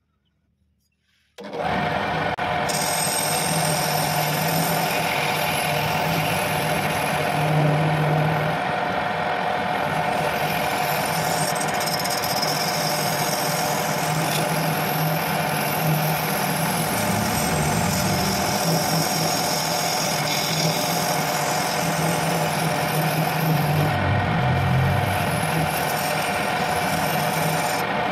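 Homemade wood lathe running, its motor humming steadily while a hand turning chisel cuts and scrapes the end of a spinning wooden workpiece, throwing off shavings. The sound comes in suddenly about a second and a half in.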